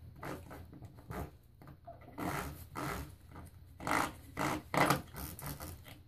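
Coiled-spring door stopper being pawed and bitten by a Yorkshire Terrier puppy, giving a series of short, irregular springy twangs and rattles.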